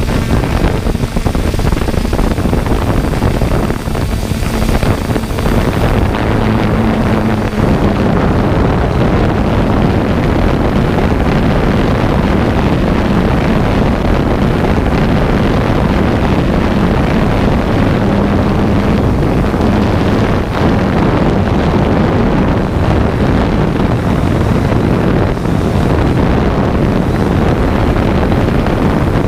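Quadcopter drone's motors and propellers running steadily, a constant hum with a low tone that shifts slightly in pitch now and then, mixed with wind rushing over the microphone.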